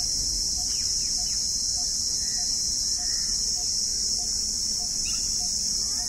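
A steady, high, unbroken drone of insects, with a short note repeated evenly about every half second and a few faint chirps underneath.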